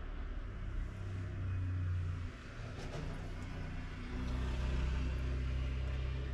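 A low mechanical hum with a steady drone, changing pitch about two seconds in and growing louder about four seconds in.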